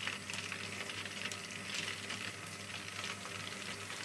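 Battered chicken pakora pieces deep-frying in hot oil in a frying pan: a steady sizzle with continual small crackles and spatters as more pieces are added to the oil.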